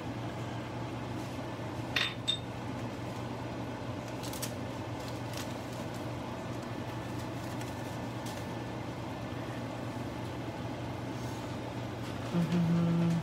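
Steady low hum and background noise in a kitchen while a pot of beef and onion simmers in broth, with two light clinks about two seconds in. Near the end comes a short, louder low hum.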